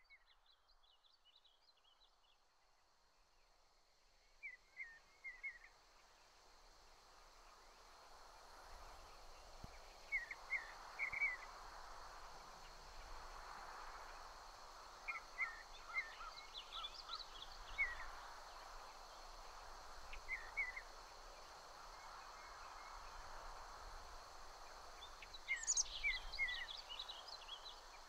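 A bird chirping in short groups of quick notes every few seconds, over a faint steady outdoor hiss. The chirps are loudest near the end.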